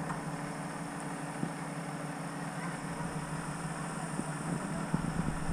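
Off-road truck's engine idling steadily, with a few light knocks.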